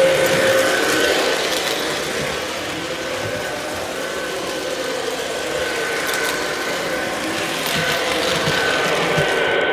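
O gauge model Pennsylvania 671 steam turbine locomotive running on three-rail track: a steady mechanical motor and wheel noise with a thin high whine, after the tail of its whistle fades in the first second.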